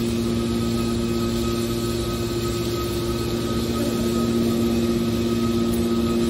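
Hydraulic metal baler running, a steady machine hum with a few constant tones that does not change in pitch.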